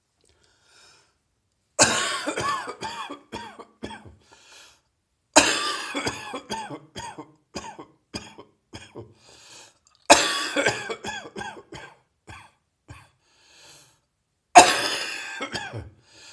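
A person coughing with a heavy chest cold in four fits, each a hard cough followed by a string of shorter coughs that trail off. The cough is a heavy chest-cold cough that is getting drier.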